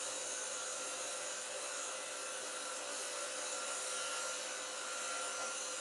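Steady blowing hiss with a faint steady hum, the blower of a hot-air rework station left running.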